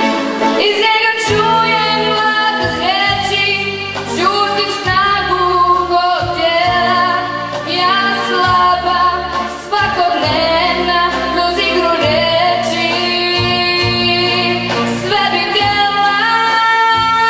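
A girl singing a pop song into a microphone through a PA, over electronic keyboard accompaniment with a steady bass line.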